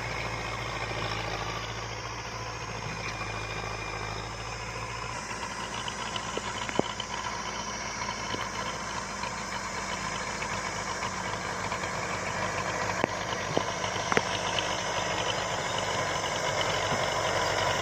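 Tractor engine running steadily, with a few sharp clicks about a third of the way in and again near the end.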